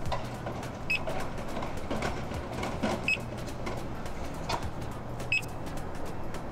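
Touchscreen control panel of a Toyo Seiki melt indexer giving three short, high beeps about two seconds apart as its buttons are pressed, over a low steady hum.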